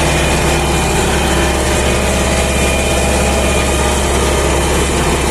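MTZ-80 tractor's four-cylinder D-240 diesel running steadily.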